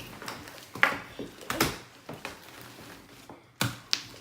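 Irregular knocks and clicks of small objects being handled on a tabletop, about six sharp taps with the loudest a little past three and a half seconds in.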